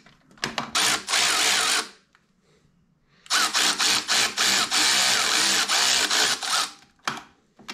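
Small cordless power tool spinning a ball-end hex bit to run in Allen-head bolts. It runs in two bursts: about a second and a half near the start, then a longer one of about three and a half seconds. A few light clicks follow near the end.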